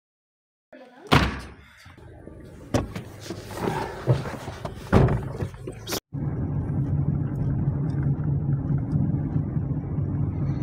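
Car engine and road noise heard inside a moving car's cabin: a steady low hum with droning tones, starting about six seconds in. Before it, several loud knocks and thuds.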